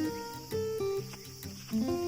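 Background music: a plucked acoustic guitar playing a melody, a new note every quarter to half second.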